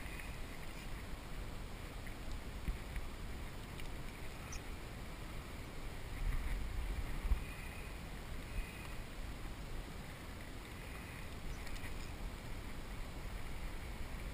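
Wind buffeting the microphone over water lapping against a kayak's hull, with a stronger gust about six to seven seconds in.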